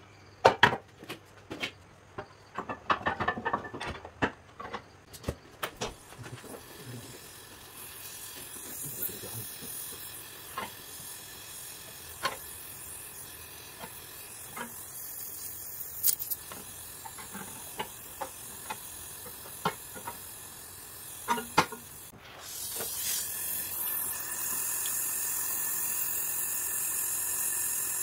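An LPG gas torch flame hisses steadily as it heats and welds a crack in an aluminium engine case, with scattered metal taps and scrapes from a hand tool. A run of sharp knocks and clicks comes first. A little after two-thirds of the way through, the hiss breaks off briefly and comes back louder.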